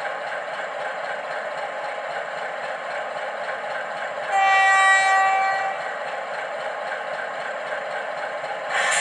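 Model Class 60 diesel locomotive running with a freight train, a steady running noise throughout. About four seconds in, one horn blast lasting about a second and a half, and a louder rush of noise comes in near the end.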